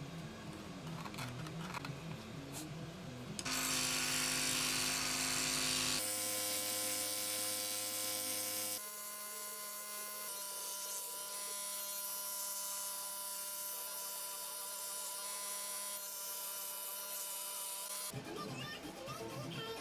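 A small electric woodworking power tool running at a steady pitch, in several short stretches cut together, with the pitch changing suddenly at each cut. Background music plays briefly at the start.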